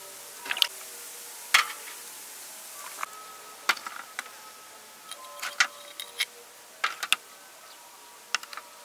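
Oyster shells knocking and clinking against each other and a metal tray as they are handled and set down: about a dozen sharp, irregular clacks.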